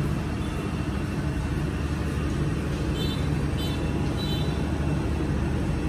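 Steady background rumble and hiss, strongest in the low range, with no distinct event.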